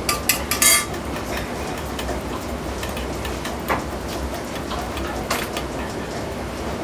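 Busy restaurant kitchen: a steady hiss over a low rumble, with a quick run of sharp clinks in the first second and single clinks twice later.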